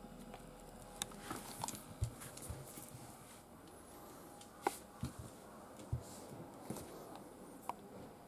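A domestic cat's footsteps: irregular soft thumps and a few sharp clicks as it walks across a wooden floor and climbs onto a sofa.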